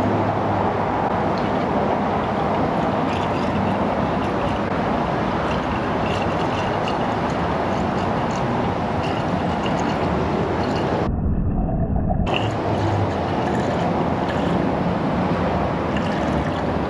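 Coolant pouring from a plastic jug into the engine's coolant reservoir, filling the cooling system, over a steady background rush of noise.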